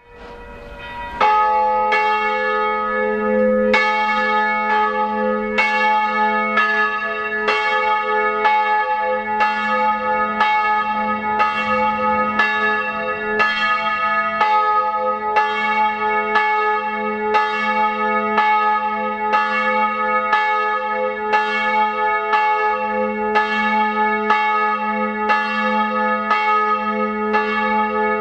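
A single bronze church bell, cast in 2006 by Rudolf Perner of Passau with strike note A-flat, swinging and ringing. Its clapper strikes a little more than once a second and each stroke rings on into the next. The sound fades in, and the full strokes begin about a second in.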